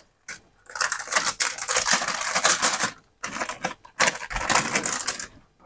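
Plastic bag of cornflour crinkling and rustling as it is handled and shaken over a bowl of chicken, in two stretches of about two seconds each with a short pause between.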